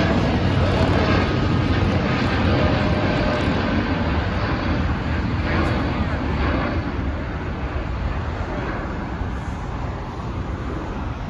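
Jet engines of a twin-engine widebody airliner climbing out after takeoff: steady jet noise, heavy in the low end, slowly fading as the aircraft moves away.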